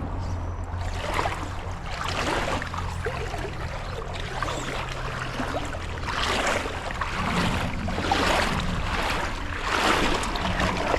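Creek water rushing, with a swish of water every second or two as someone wades through it.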